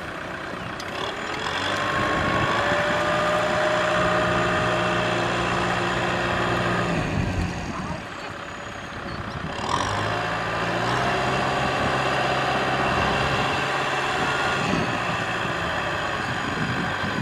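Farm tractor's diesel engine revving under load as it drives through deep mud. It eases off about eight seconds in, then revs up again.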